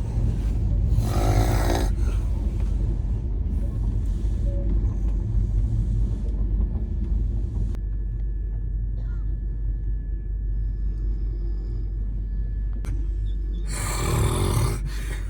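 A person snoring, with one loud rasping snore about a second in and another near the end, over the steady low rumble of a moving train.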